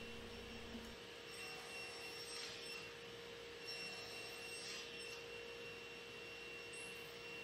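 Faint steady whine of a running table saw with a flat-bottom box joint blade, with two faint swells about two seconds apart as the blade cuts square notches through a crosscut sled.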